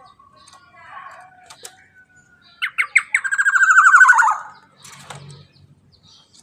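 Black-naped oriole calling. A few short notes come about two and a half seconds in, then a loud, rapidly pulsed call that falls in pitch at its end, with faint chirps around it.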